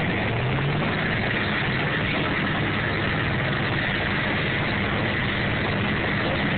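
Diesel pickup truck engine idling, with a short rise in engine pitch about half a second in before it settles back to a steady idle.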